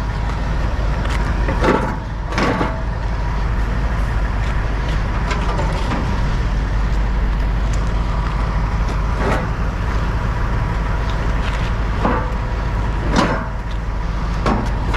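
Heavy diesel engine running steadily, with a few short clanks and knocks scattered through.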